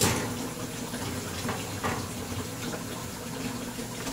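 Metal cake pan set onto an oven rack with a sharp clank, then a couple of light clicks as the rack goes in, over a steady low hum.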